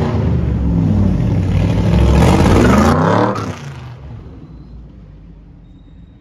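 Supercar engine revving hard as it accelerates, its pitch climbing and falling with the revs. About three seconds in it drops away and fades steadily as the car pulls off.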